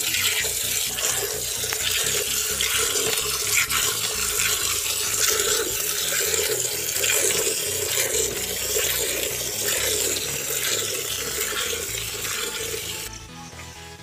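Streams of milk squirting from a buffalo's teats into a partly filled steel bucket as the buffalo is milked by hand, a steady spattering hiss. It stops abruptly about a second before the end.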